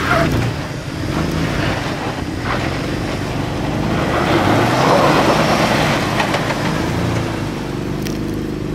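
A 4x4's engine revving up and down under load as it crawls over rocks, over a rough grinding noise from the tyres on the trail.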